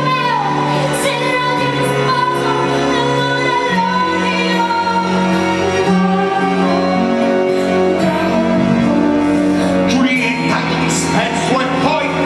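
Live musical-theatre song: a woman singing over orchestral backing of long held chords. Her voice glides down at the start.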